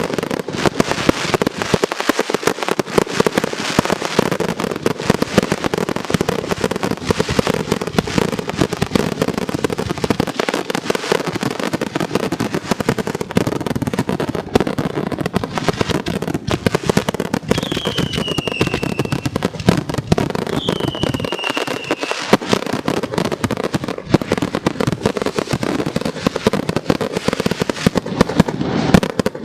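Aerial fireworks shells from a professional display going off in a dense, unbroken barrage of booms and crackles, with two short falling whistles about two-thirds of the way through.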